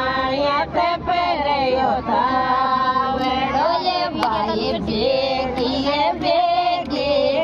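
Women singing a Rajasthani Mayra (bhaat) folk song in high voices, with long held notes that bend in pitch.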